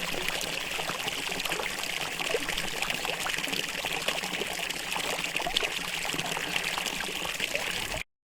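Fountain water trickling steadily, with small scattered splashes and clicks through it; it cuts off suddenly about eight seconds in.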